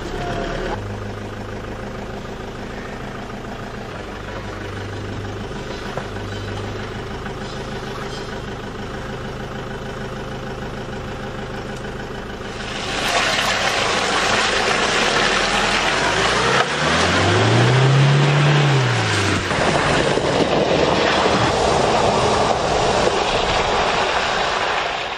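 Toyota Hilux pickup's engine running at low, steady revs as it crawls over rocks. About halfway through, a louder rushing noise takes over, and the engine revs up and back down once.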